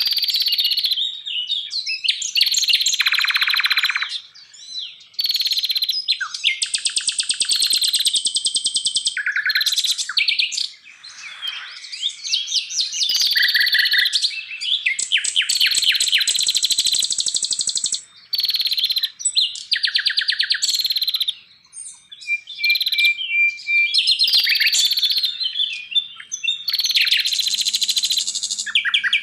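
Songbird song in quick phrases of rapid trills and high whistles, one phrase after another with short pauses between them.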